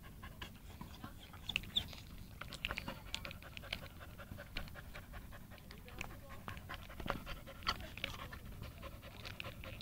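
Australian Cattle Dog panting, the quick open-mouthed breathing of a dog cooling itself in 90 °F heat.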